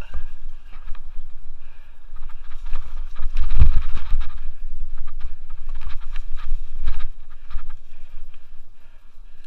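Mountain bike riding fast down leaf-covered dirt singletrack, heard from a helmet camera: wind buffeting the microphone under the clatter and knocks of the bike over bumps. The loudest jolt comes about three and a half seconds in, over a rocky, rooty stretch.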